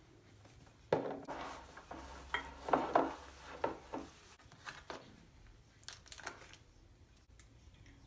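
Glass storage jars clinking and knocking as they are handled and set down on a countertop: a sharp knock about a second in, then a run of clinks over the next few seconds and a few fainter taps.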